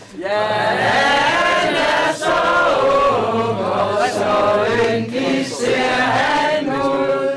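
A group of people singing together in chorus, in several sung phrases with short breaths between them.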